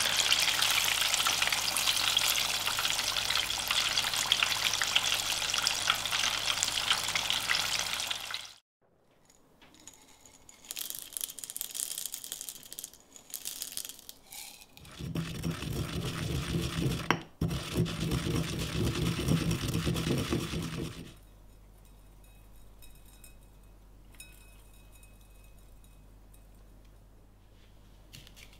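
Chicken pieces deep-frying in a pot of hot oil: a dense, steady sizzle and crackle for about the first eight seconds, which cuts off suddenly. After it come quieter scattered rattles of dry allspice berries dropped into a granite mortar, a louder rough noise lasting about six seconds, and then only faint room tone.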